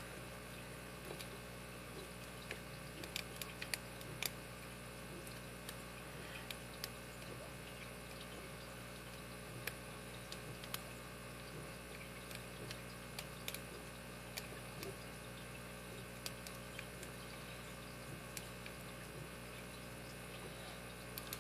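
Faint, irregular small metallic clicks and ticks of a lock pick and tension wrench working the pin stack of a Master Lock 15FF five-pin padlock with serrated security pins, over a steady low hum.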